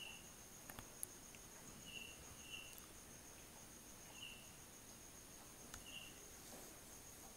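Near silence, with an insect chirping faintly in short single chirps every second or two over a steady thin high-pitched whine; a couple of small clicks about a second in.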